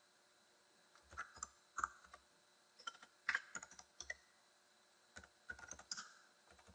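Faint typing on a computer keyboard: groups of quick key clicks starting about a second in, with short pauses between the groups.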